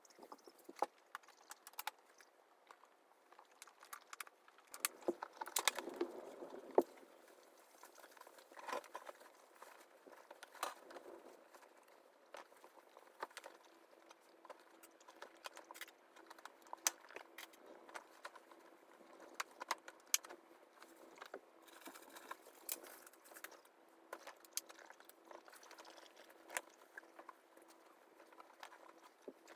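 Guinea pigs moving about their cage: faint, scattered light taps, clicks and rustles, busiest a few seconds in, with a faint steady hum joining about halfway through.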